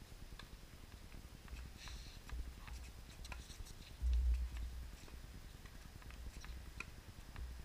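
Outdoor ambience on a tennis court: a low rumble of wind buffeting the microphone, swelling about four seconds in, with scattered faint light ticks and taps.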